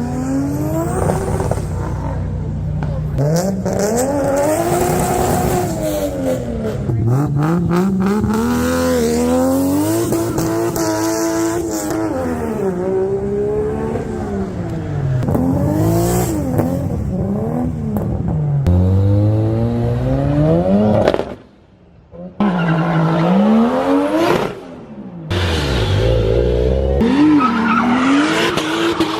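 Turbocharged car engines revving up and dropping back over and over, the pitch rising and falling with each pull. The sound cuts away briefly twice in the last third.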